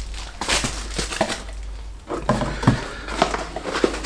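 Packaging handling: bubble wrap crinkling, then a small cardboard box being handled and opened, with light knocks and scrapes.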